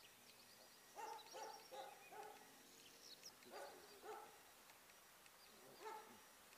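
German Shepherd dog giving faint short barks: four in quick succession about a second in, then a few single ones spaced out.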